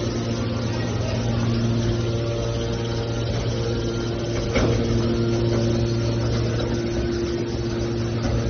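Hydraulic scrap metal baler's power unit running with a steady hum, with a single sharp knock about halfway through.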